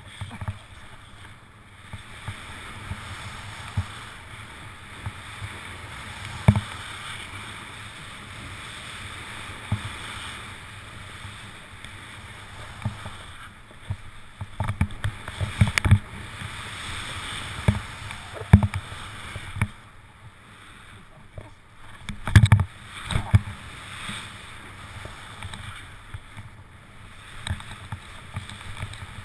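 Skis sliding and turning through deep off-piste snow: a steady hiss that rises and falls with the turns, broken by scattered dull thumps and knocks, the strongest cluster about 22 seconds in.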